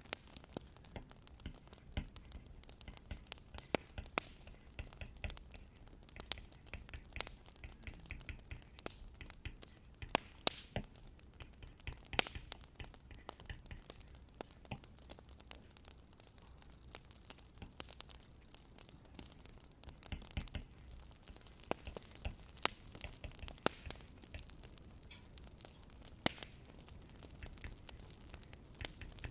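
Wood fire crackling, with irregular sharp pops and snaps over a faint low rumble.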